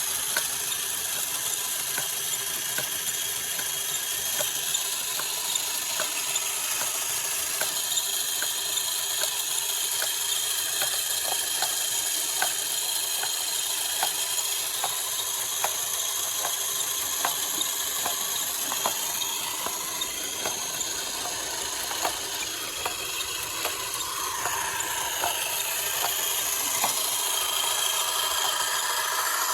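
Small electric motor whining steadily with a cluster of high tones, and scattered sharp clicks of gears or mechanism throughout.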